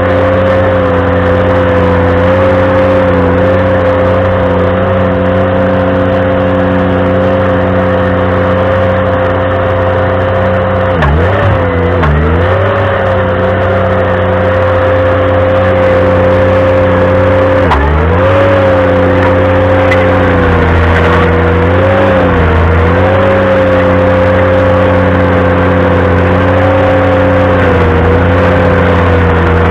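Ventrac tractor running its stump grinder attachment at high speed, a steady engine sound with a high whine on top. The pitch sags sharply and recovers a couple of times about a third of the way in and again a little later, as the cutter wheel bites into the stump and loads the engine.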